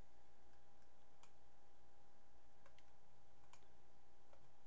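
A handful of sharp, irregularly spaced computer mouse clicks over a faint steady hum.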